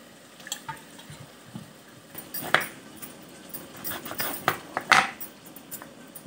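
Kitchen utensils knocking and clinking while cooking: scattered sharp knocks, thickest in the second half and loudest about five seconds in.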